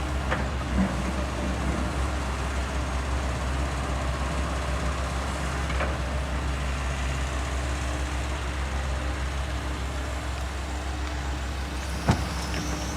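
JCB excavator's diesel engine running steadily, with a few sharp knocks and clanks.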